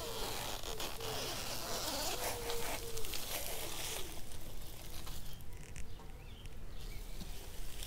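A flying insect buzzing close by, its pitch wavering up and down during the first few seconds, over outdoor ambience with a few short rustles and knocks.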